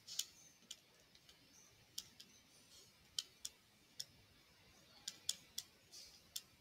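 Faint, irregular clicks, roughly one or two a second, of a stylus tip tapping a touchscreen while handwriting.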